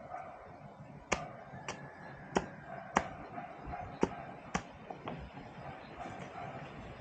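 Sharp chopping knocks of a blade striking bamboo, about seven in a row at uneven intervals over the first five seconds.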